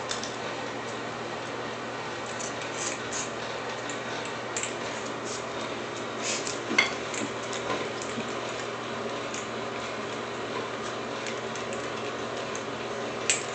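Scattered light clicks and taps on a ceramic tile floor as a dog and a cat move about and play with a small toy, over a steady background hum; one sharper click comes about seven seconds in.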